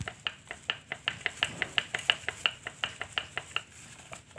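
Rapid, even clicking, about six or seven clicks a second, as a carpet-scrubbing brush is twisted back and forth by hand to seat it onto the gearbox shaft. The clicking thins out near the end.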